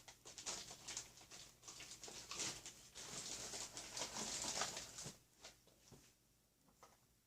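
Hands handling parts at a workbench: rustling and light clicks and taps for about five seconds, then dying away to a few faint clicks.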